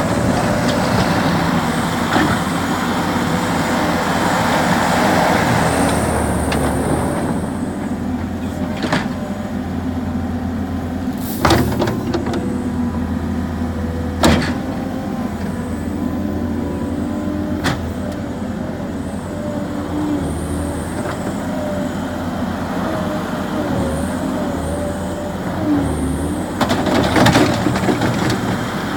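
New Holland skid steer loader's engine running steadily, its pitch wavering as it works, with several sharp clanks: loud ones about 11 and 14 seconds in and a cluster near the end.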